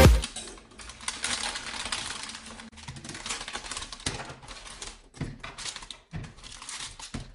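Potatoes being taken out of a crinkling plastic bag and set down in a plastic colander: a string of irregular light taps, clicks and rustles, with a few sharper knocks in the second half.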